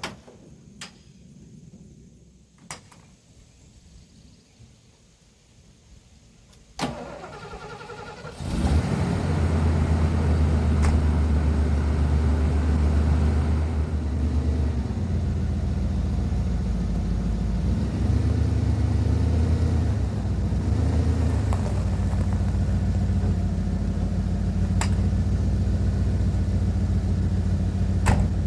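Van engine started after months of sitting: a few clicks, then the starter cranks for about a second and a half before the engine catches about eight seconds in. It then runs steadily at idle, its speed rising and dipping a little.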